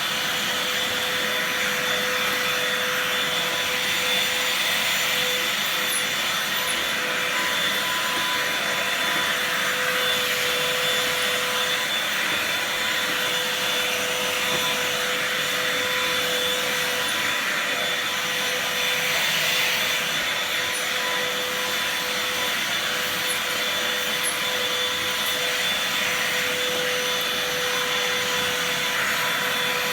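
Bosch GAS 18V-1 cordless handheld vacuum cleaner running steadily: a constant motor whine over the rush of air.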